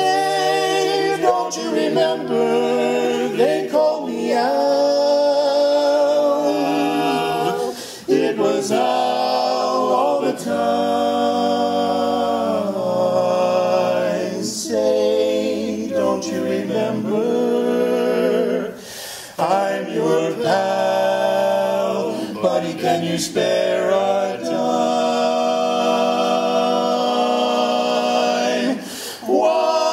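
A cappella vocal group singing in harmony, several unaccompanied voices holding chords, with brief breaks between phrases.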